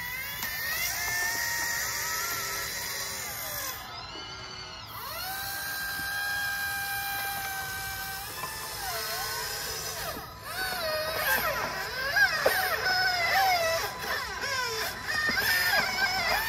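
Despe RC hydraulic excavator's pump motor whining as it digs. The pitch holds steady for stretches, then slides up and down as the arm and bucket work under load, becoming more uneven and louder in the last few seconds.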